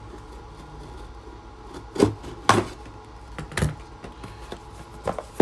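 A cardboard shipping box being cut open and handled: faint scissors snipping through packing tape, then about four sharp knocks of cardboard as the box is lifted and turned.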